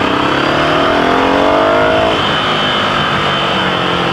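Ducati Scrambler 800's air-cooled L-twin engine pulling under acceleration, its note rising steadily for about two seconds and then dropping abruptly before it runs on steadier, over rushing wind noise.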